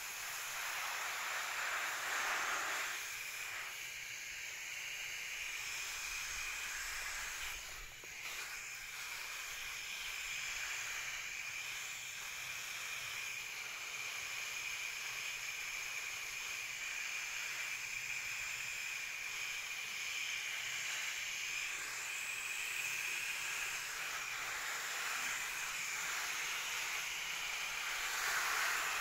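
Hose spray nozzle hissing as its fan of water spatters onto leafy plants, swelling louder about two seconds in and again near the end.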